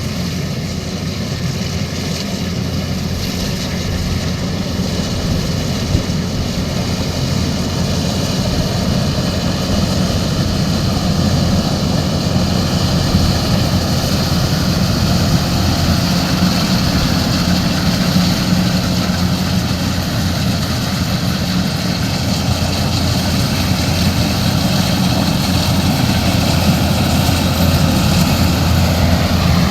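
Rice combine harvester's diesel engine running steadily under load, with the threshing machinery adding a broad mechanical noise; it grows a little louder after the first few seconds.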